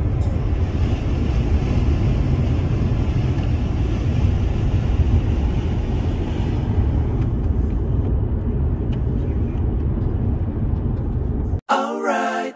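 Steady road and engine rumble heard inside a moving car's cabin. Near the end it cuts off abruptly and a cappella singing begins.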